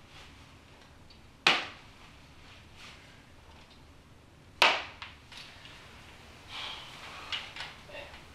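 Two sharp knocks about three seconds apart, each dying away within a fraction of a second, followed by softer rustling and small knocks near the end.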